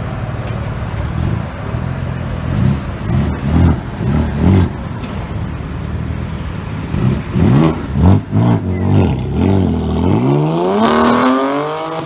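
Straight-piped exhaust of a BMW M3's twin-turbo inline-six, mufflers deleted: idling, then two rounds of quick throttle blips, then a long rising rev near the end as the car accelerates away.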